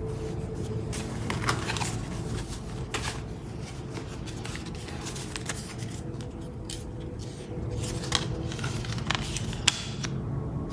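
Packaging and the bag being handled by hand: scattered rustling, crinkling and sharp clicks over a steady low background hum.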